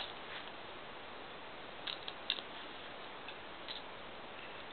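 A few faint clicks of plastic Lego bricks being handled and set together, over a steady background hiss.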